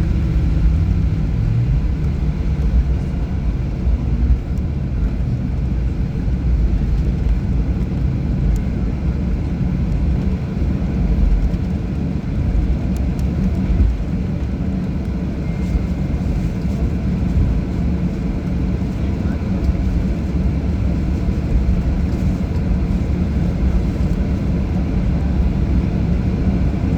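Cabin noise of a Boeing 737 taxiing after landing: a steady, loud low rumble from the engines at idle and the airframe rolling.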